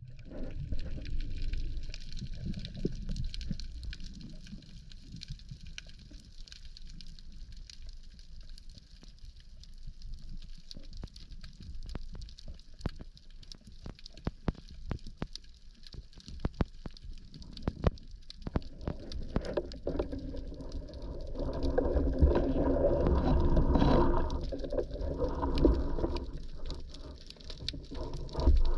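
Underwater sound picked up by a camera in its housing: a low, steady water rumble with many sharp clicks through the middle, then a louder rushing noise of water movement from about two-thirds of the way in.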